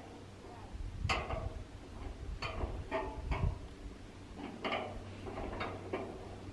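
Irregular metal-on-metal clinks and clanks, about seven sharp knocks spread unevenly, as a wrench works on the anchor bolts at the foot of a steel windmill tower. A low steady rumble runs underneath.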